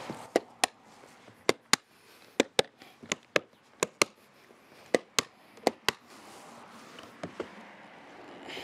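Latches of a Pelican hard case being snapped shut one after another: seven pairs of sharp clicks about a quarter second apart, then two fainter clicks near the end.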